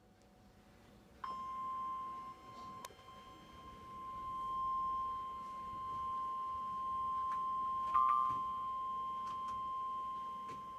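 NOAA Weather Radio 1050 Hz warning alarm tone: a single steady high-pitched tone that starts about a second in and holds, with a brief break and click near three seconds in and another click about eight seconds in. It is the alert tone that comes before a severe thunderstorm warning message.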